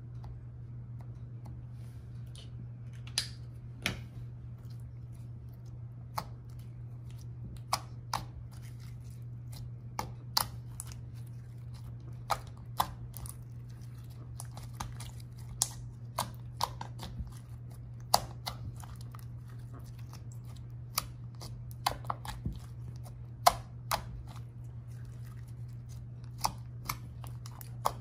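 White slime being kneaded, folded and squeezed by hand, giving irregular sharp pops and clicks, sometimes in quick pairs, over a steady low hum.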